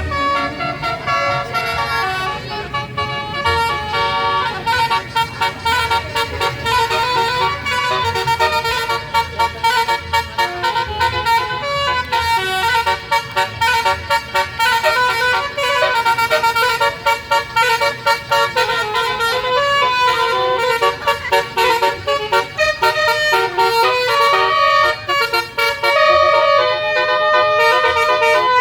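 Bus 'telolet basuri' musical horn playing a melody: a quick run of pitched horn notes, one after another, with short breaks between phrases.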